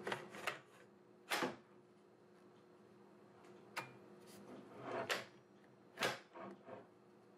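Sharp plastic clicks and knocks of a Black & Decker 40V MAX lithium-ion battery pack being pushed into and worked into the spring-loaded battery compartment of an LSWV36 sweeper/vac, the springs pushing it back against the latch. About half a dozen clacks come at irregular intervals, the loudest about a second and a half, five and six seconds in.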